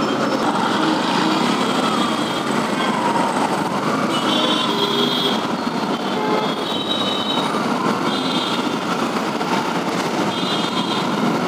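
Din of dense city road traffic around a motorcycle in a jam: a steady mix of engines, with several short, high-pitched horn beeps.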